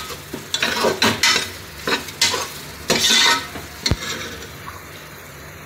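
A metal spoon stirring and scraping sautéed mutton masala around a metal pressure cooker in about six quick strokes, then a single knock near four seconds in, after which only a faint sizzle of frying remains.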